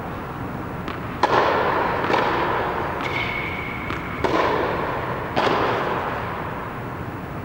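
Four sharp tennis-ball pops spread over a few seconds, each ringing on in the long echo of an air-supported indoor tennis dome. A brief high squeak comes in the middle.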